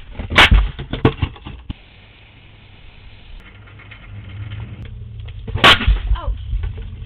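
Two sharp bangs from a decoy package rigged with a small explosive noisemaker, set off as it is picked up, about five seconds apart, each followed by a few seconds of clattering and knocks.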